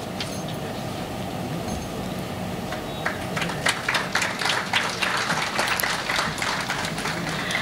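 Audience applause: clapping starts about three seconds in and grows dense, over a low steady hum in the hall.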